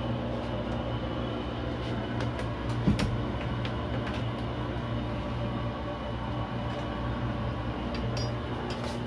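Steady machinery hum and drone aboard a tugboat, with a few light clicks and a knock about three seconds in from handling and walking.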